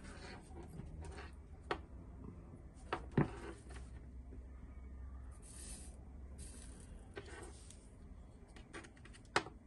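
Small handling noises from bench work on a battery pack: a few sharp clicks and knocks, the loudest near the end, and brief rustles in the middle, over a low steady hum.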